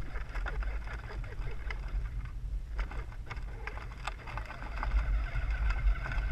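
Battery-powered toy Yamaha Raptor ride-on quad rolling over rough grass, heard through a camera mounted on the quad: a steady low rumble scattered with small rattles and knocks from bumps, with a faint steady whine toward the end.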